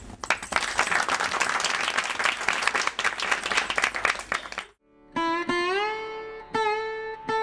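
Audience clapping, which cuts off abruptly about four and a half seconds in, followed by sitar music: a few single plucked notes that slide up in pitch and ring on.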